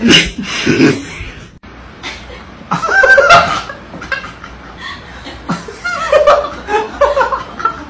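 Human laughter in several bursts, with some voice mixed in.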